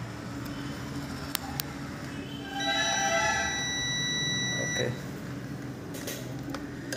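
Continuity buzzer of a UNI-T digital multimeter sounding one steady high beep, about two seconds long, starting a little over two and a half seconds in. A few faint handling clicks come before it.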